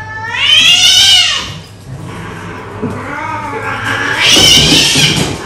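Domestic cat yowling loudly twice while held down for wound treatment: a rising-then-falling yowl, then a longer, harsher one, the sound of a distressed cat protesting at being restrained.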